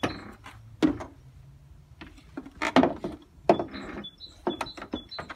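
Hand work on car body parts: a string of sharp knocks and short plastic clatters as parts are handled and fitted, with faint bird chirps behind.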